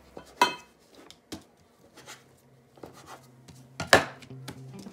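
A blade cutting bread dough and knocking on a plastic cutting board: two sharp knocks, about half a second in and near the end, with lighter taps between.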